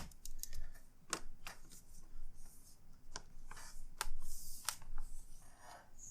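Scattered sharp clicks and taps, about six spread unevenly, with brief light rustling about four seconds in, from laptop parts and tools being handled during reassembly.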